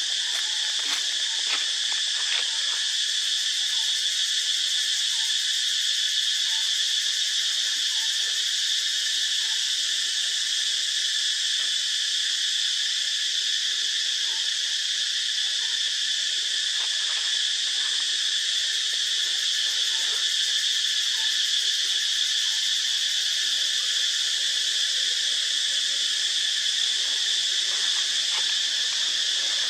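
Steady, high-pitched insect chorus drones on without a break, with a few faint clicks.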